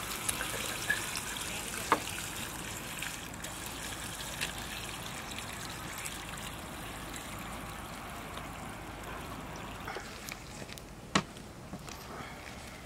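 Water trickling and sloshing steadily as cut fish pieces are washed by hand in a large steel pot of water. Two sharp clicks stand out, one about two seconds in and a louder one near the end.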